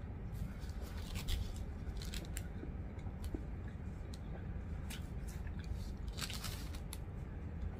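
Chewing and mouth sounds of someone eating a sandwich, with short crinkles of its paper wrapper and a napkin, a longer rustle about six seconds in, over a steady low hum.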